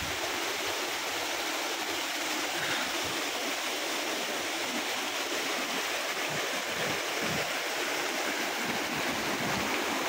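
Waterfall and the stream below it rushing over and between boulders: a steady, even rush of water.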